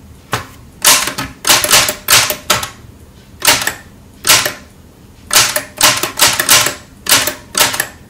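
Keys of a 1968 Sears manual typewriter striking the paper one at a time in irregular clusters of hunt-and-peck typing, each keystroke a sharp clack, with short pauses between the clusters.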